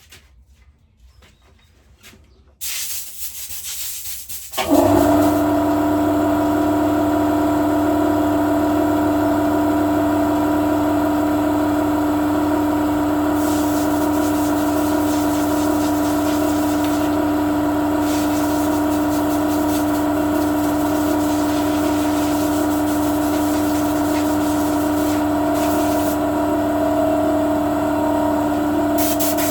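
A hiss starts, and about two seconds later a loud motor-driven machine starts up and runs steadily with a constant hum and whine, while the hissing comes and goes over it.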